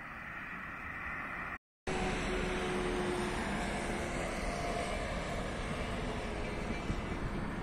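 Road traffic: trucks passing on a nearby road, a steady rush of tyres and engines with faint engine tones. The sound drops out for a moment about two seconds in, then comes back louder.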